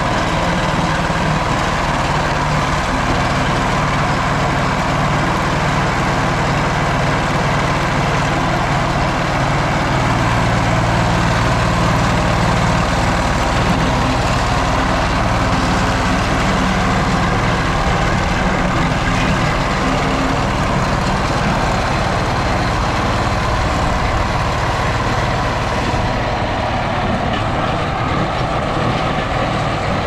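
Small single-cylinder engine of a vibratory plate compactor running steadily. Near the end the sound becomes duller.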